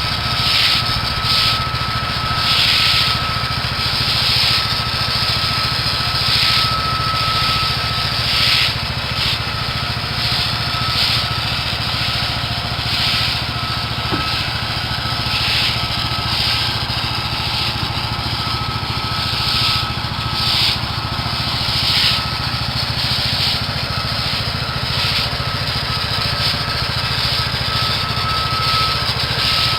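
Small gas engine running steadily, with repeated gritty hissing strokes every second or two, as joint sand is worked into patio pavers.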